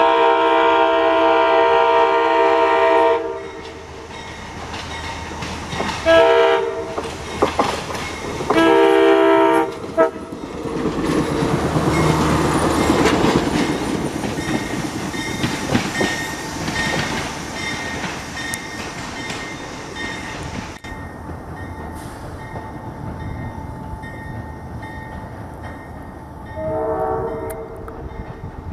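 A Budd RDC self-propelled railcar sounds its chime air horn: one long blast of about three seconds, a short blast, then another longer blast. It then passes close by, its wheels rumbling and clicking over the rail joints. After a quieter spell it sounds its horn once more, briefly, near the end.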